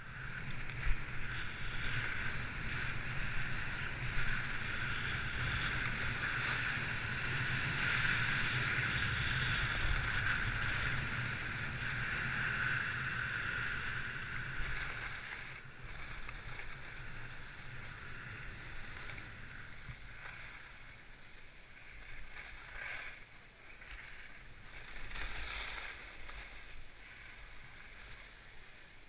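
Sliding downhill on groomed snow: a steady scraping hiss of edges on the snow, with wind rumbling on the microphone. It is loudest in the first half and eases off after about fifteen seconds, with a few brief swells later.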